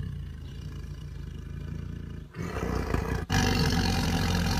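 Tiger growling over its food: a low, steady rumble that becomes much louder and rougher about two and a half seconds in.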